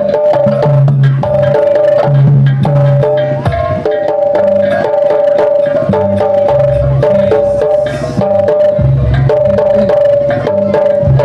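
Jaranan gamelan accompaniment: a fast pattern of drum strokes and short pitched metal notes, with a long held high note over them.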